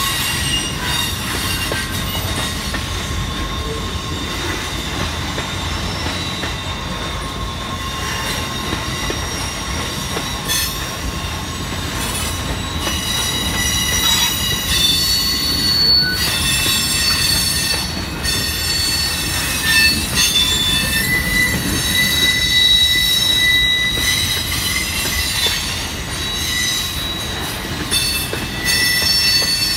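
Freight train of boxcars rolling past: a steady low rumble of wheels on rail, with thin high-pitched wheel squeals that come and go.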